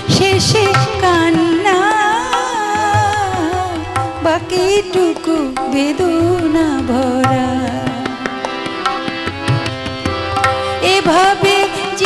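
A woman singing a wavering, ornamented Bengali song melody without clear words, accompanied by harmonium and tabla.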